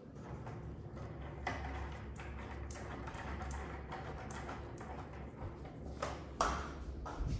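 Footsteps on a hardwood floor: a few irregular light taps, then a brief louder scuff near the end.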